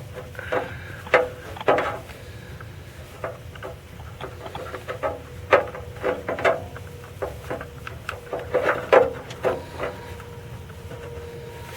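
Hand tools clicking, tapping and scraping against metal parts of the dipstick tube adapter, in irregular knocks of varying loudness, over a steady low hum.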